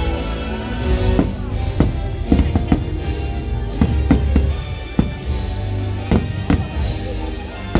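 Fireworks shells bursting in a quick run of about a dozen sharp bangs, over the show's music.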